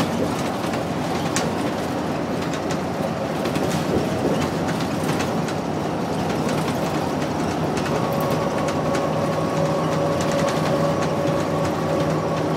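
Cabin sound of a 2001 New Flyer C40LF transit bus under way, its Cummins C Gas Plus natural-gas engine and Allison B400R automatic transmission running steadily under road noise, with scattered rattles from the body. About eight seconds in, a steady whine sets in and holds.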